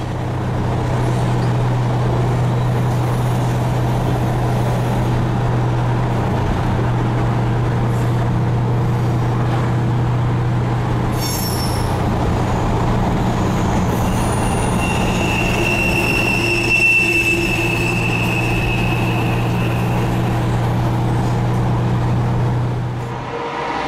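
Steady road noise and low drone of a car driving alongside a long covered-hopper freight train. Thin, high train-wheel squeal rises over it about two-thirds of the way through. The drone cuts off just before the end.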